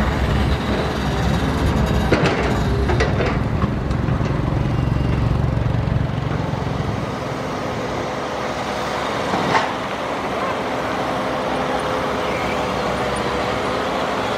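Matador (Shantui) ME210LC-1 crawler excavator's diesel engine working under load while the bucket digs in the trench and lifts a full load. The heavy low engine sound eases about seven seconds in. A few clanks come early, and a single sharp knock comes near the tenth second.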